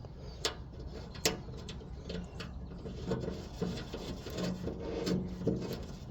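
Bolts, washers and parts being handled and fitted by hand: two sharp clicks in the first second or so, then scattered rubbing and light knocks as a bolt is worked into place.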